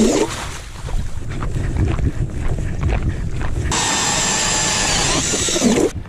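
Cordless drill driving a Clam ice auger through lake ice. The motor's high whine cuts out just after the start, leaving a low rough rumble, then runs again from a little before 4 s until it stops near the end.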